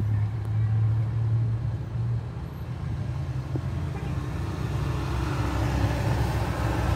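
Volkswagen Polo's engine idling with a steady low hum, heard from inside the car; a broader hiss grows louder in the last couple of seconds.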